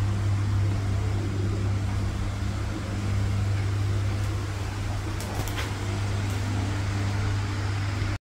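A steady low hum with an even hiss underneath and a few faint clicks. It drops out suddenly near the end.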